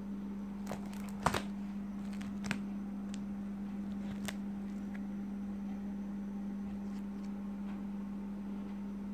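Plastic coin-album pages being handled and turned, giving a few short clicks and crinkles, the loudest about a second in. A steady low hum runs underneath.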